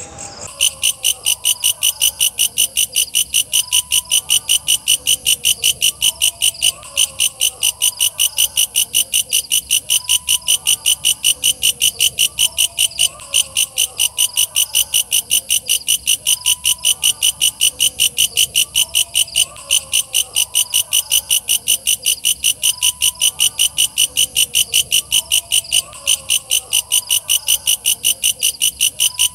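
Walang kecek katydid (bush cricket) calling: a fast, even train of loud, high-pitched chirps that keeps going without a break.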